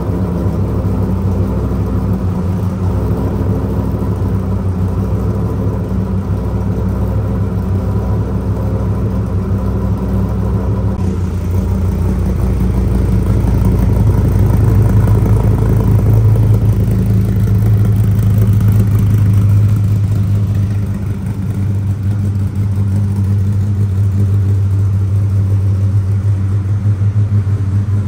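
Dodge Viper's 8.4-litre V10 idling steadily just after a cold start, a low, even drone from its side-exit exhausts. It grows a little louder from about a third of the way in, with a brief dip about three quarters of the way through.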